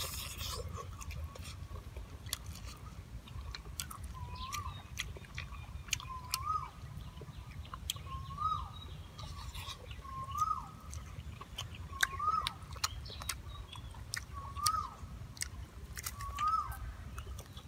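Close-up wet chewing and lip-smacking of someone eating meatballs by hand, heard as many small clicks. A bird in the background repeats a short rising-then-falling call about every two seconds.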